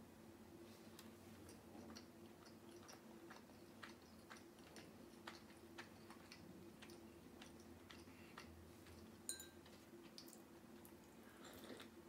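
Faint chewing: a person eating a bite of bread with hard goat cheese, wet mouth clicks coming irregularly, over a faint steady hum.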